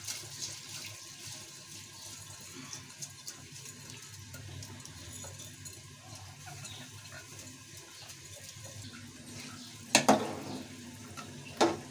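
Soaked rice being tipped and scraped by hand from a glass bowl into a large metal pot of boiling dal, over a steady low bubbling. Near the end a spoon strikes the metal pot twice with sharp clanks as the rice is stirred in.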